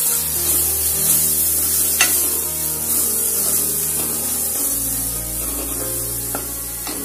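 Tomato-onion masala with spice powders sizzling in oil in a non-stick kadai while it is stirred, the spatula scraping the pan a few times. Soft background music with long held low notes plays underneath.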